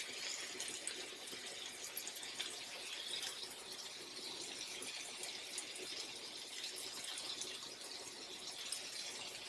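Raw beef burger patties sizzling in vegetable oil on a flat griddle: a steady, fairly faint hiss flecked with small pops.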